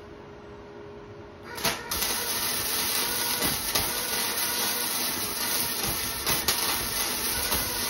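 Wire-feed (MIG-type) welder arc crackling and sizzling with many small pops as a bead is laid on a thin steel tube frame. The arc strikes about a second and a half in, then burns on steadily.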